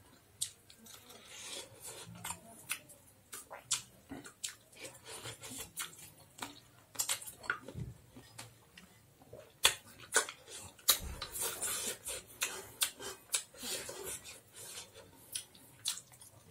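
Close-up eating sounds of a meal eaten by hand: fingers mixing rice against a steel plate and wet chewing with lip smacks, heard as many irregular sharp clicks and smacks.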